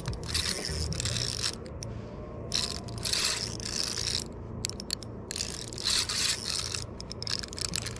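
Shimano Stradic spinning reel being cranked in spells, its gears whirring with short pauses between turns, as a hooked fish is reeled in.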